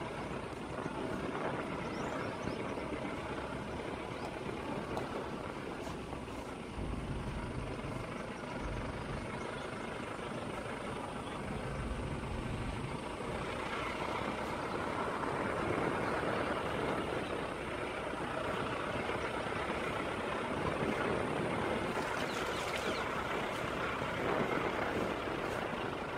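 Steady driving noise from a moving vehicle on a rough road, a mix of engine and tyre noise, with deeper low rumbles coming and going between about 7 and 13 seconds in.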